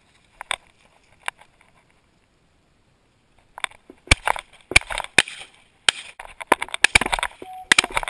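Dry brush and grass crunching and snapping as someone pushes through cover on foot. There are two lone snaps early, then dense irregular crackling from about halfway on. A brief steady tone sounds near the end.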